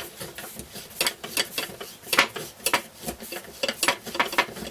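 Screwdriver and pliers tightening a small bolt and nut on a bracket: irregular metallic clicks and scrapes as the tools work against the fittings.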